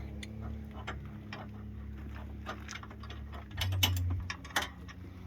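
Irregular light clicks and knocks over a steady low hum, with a brief low thump about three and a half seconds in.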